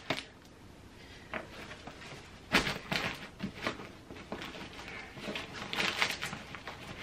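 Clothes and fabric packing cubes rustling and shuffling in a few short spells as they are pressed and pushed into a hard-shell suitcase.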